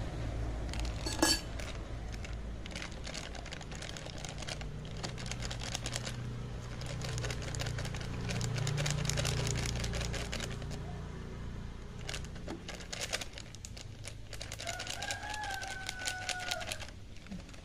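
A plastic food packet crinkling and rustling in the hands as it is opened and its contents tipped into a bowl, a long run of small crackles over a steady low hum.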